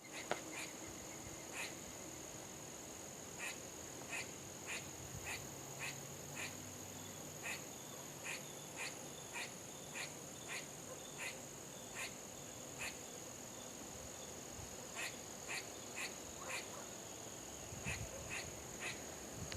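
Squirrel barking: a long run of short, sharp alarm calls repeated every half second to a second, with a pause of a couple of seconds midway.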